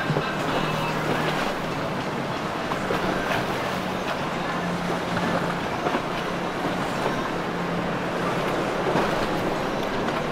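Boat engines running steadily at slow speed, a low hum, with water splashing and wind noise over it.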